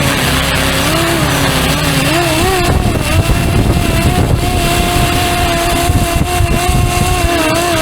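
Fly-Wing MH-60R SeaHawk RC helicopter in flight: the electric motor and rotor give a steady whine whose pitch wobbles up and down with the throttle, then holds more level from about three seconds in. A low, gusty rumble runs underneath it.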